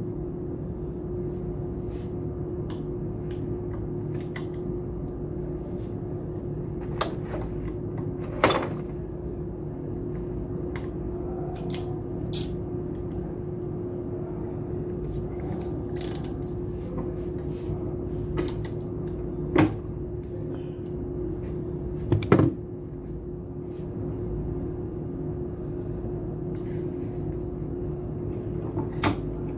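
Scattered metal clicks and knocks of hand tools working on a submersible pump being taken apart, the sharpest knock about eight seconds in with a brief metallic ring, another strong one near two-thirds of the way through. A steady hum runs underneath.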